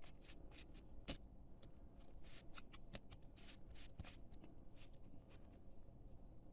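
Trading cards being flipped through by hand, a string of faint, soft flicks and slides of card on card.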